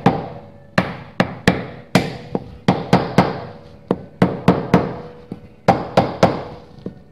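A mallet tapping the metal grease cap onto the front wheel hub of a 1964 VW Beetle. The sharp taps come in quick irregular clusters of two or three, about a dozen and a half in all, each with a brief metallic ring.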